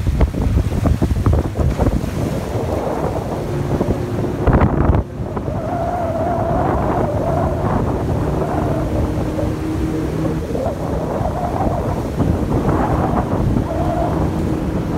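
Small boat's motor running under way through fast river current, with wind buffeting the microphone and rushing water. The first five seconds are gustier; from about five seconds in a steadier motor hum with a slightly wavering pitch comes through over the wind and water.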